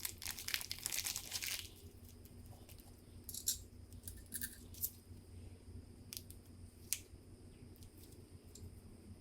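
Crinkling, rustling handling noise for the first second and a half or so, then a few separate light clicks spread through the rest, over a low steady hum.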